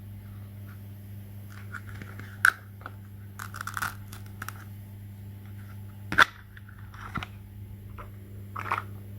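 Small objects being handled by hand: a few sharp clicks and short crunching, crackling noises over a steady low electrical hum.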